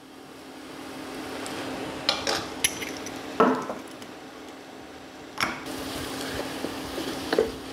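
Cooking utensils clinking and a wooden spoon stirring thick laksa paste as it fries in a pot, with several sharp knocks scattered through. A steady low hum runs underneath.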